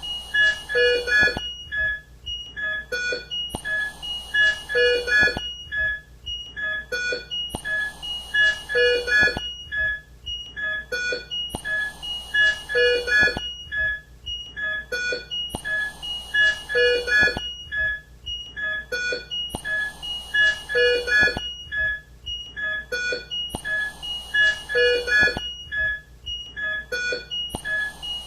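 ICU bedside equipment: electronic monitor and alarm beeps at a few different pitches, with a rush of air from a mechanical ventilator in each cycle. The whole pattern repeats about every four seconds.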